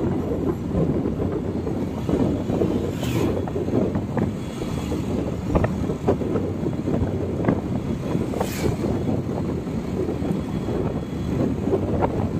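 Wind buffeting the microphone of a moving vehicle over steady road and engine noise, with scattered knocks. Two brief hissing sweeps fall in pitch, about three seconds in and again about eight and a half seconds in.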